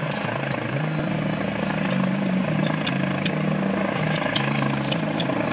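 Helicopter flying overhead, its rotor and engine making a steady low drone with a hum that shifts between a few low pitches.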